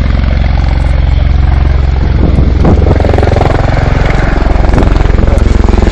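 Bell Boeing CV-22 Osprey tiltrotor flying low overhead, its two proprotors making a loud, deep, steady thrum.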